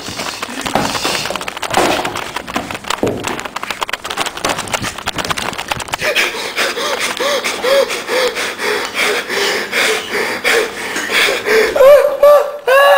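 For the first several seconds, crackling and rubbing as the phone's microphone is handled and knocked. Then comes a run of short high-pitched voice squeals, about two a second, which grow louder near the end.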